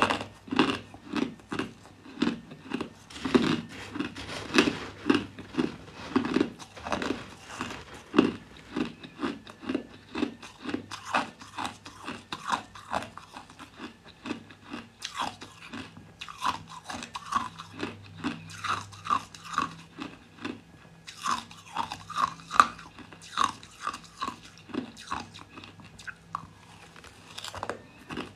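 Mouthfuls of crushed ice being chewed, a close crunching of ice breaking between the teeth, about two to three crunches a second without a break, over a faint steady low hum.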